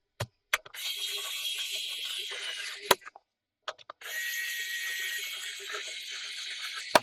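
Several sharp clicks and taps of a laptop's plastic casing and parts being handled and fitted back together, over a steady high hiss.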